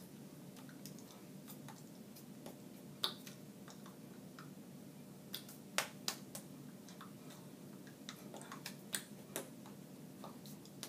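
Scattered sharp clicks and light taps from hands meeting and moving while signing, over a steady low room hum. The loudest clicks come about three, six and nine seconds in.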